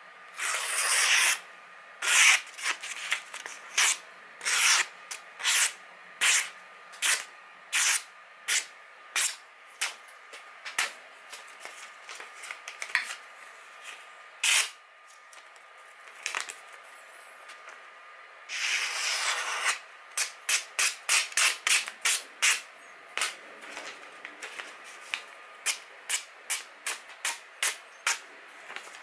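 Freshly sharpened kitchen knife slicing through hand-held sheets of magazine paper as a sharpness test: a series of short, crisp cuts. The cuts come about one a second at first, then in quicker runs of several a second in the second half. Two longer slicing strokes stand out, one right at the start and one about two-thirds of the way through.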